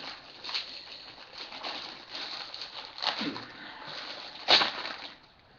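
Packaging being handled: a bag and wrapping rustling and crinkling, with scattered crackles and one loud sharp crackle about four and a half seconds in.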